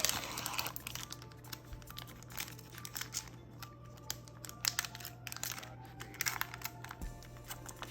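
Foil wrapper of a Yu-Gi-Oh! booster pack crinkling and tearing open, then the trading cards being handled and slid apart, making quiet scattered crackles and clicks.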